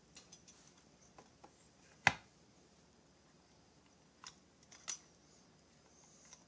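Light clicks and taps of parts being handled at a chainsaw crankcase, with one sharper knock about two seconds in and two smaller taps around four to five seconds in.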